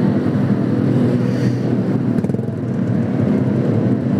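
Motorcycle engine running at low speed, a steady low pulsing, with cars passing close by.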